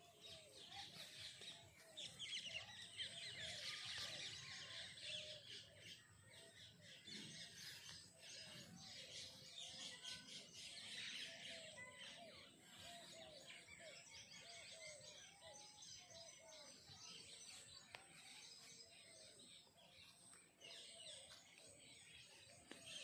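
Faint chorus of birds chirping and calling, busiest in the first few seconds, with a run of short, repeated lower calls through the first half.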